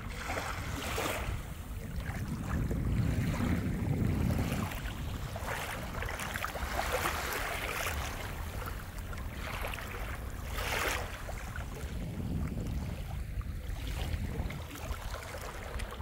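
Small waves lapping and washing onto a sandy shore, each wash a soft rising and falling hiss, three or so in turn, over a steady low rumble of wind on the microphone.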